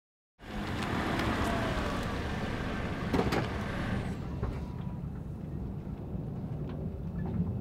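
Road vehicle noise: a car's engine and tyres with a steady low rumble, and a hiss that eases off after about four seconds as if the vehicle is passing or pulling away. A single knock comes about three seconds in.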